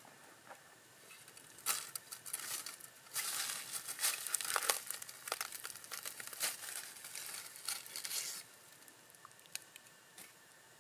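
Crumpling and crinkling of a thin sheet being handled, a run of many small crackles lasting about seven seconds, starting about two seconds in.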